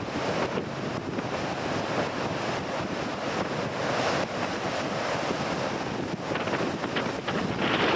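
Sea waves breaking and washing against shore rocks, with strong wind buffeting the microphone. The surf swells about four seconds in and again near the end.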